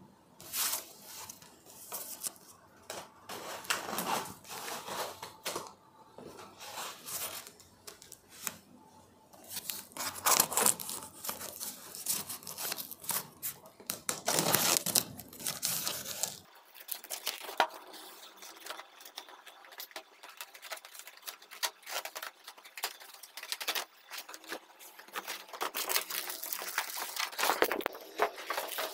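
Packing tape being peeled and torn off a cardboard shipping carton, in irregular ripping rasps, with cardboard rustling and scraping between pulls.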